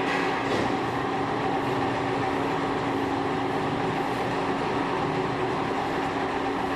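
Machine tool running steadily while machining a screw conveyor part: a constant mechanical hum with a few steady tones over a noisy background.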